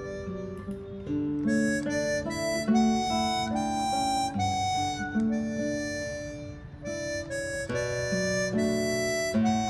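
Instrumental background music: a melody of held notes over lower chords, changing every half second or so.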